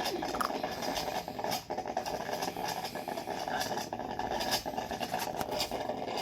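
Coffee maker running loudly: a steady mechanical drone with scattered clicks.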